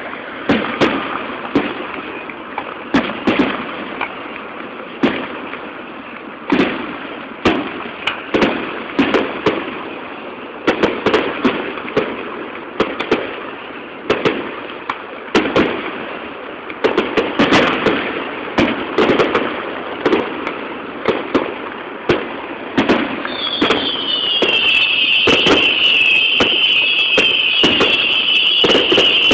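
Aerial fireworks display: shells bursting with sharp bangs, one every half second to a second, each followed by crackle and echo. About 23 seconds in, a dense high whistling of many falling whistles at once joins the bangs and grows louder.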